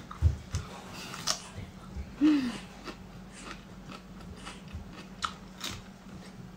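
Close-up crunchy bites and chewing of a fresh cucumber slice: a handful of sharp, wet crunches spread through a few seconds, with a brief hummed 'mm' about two seconds in.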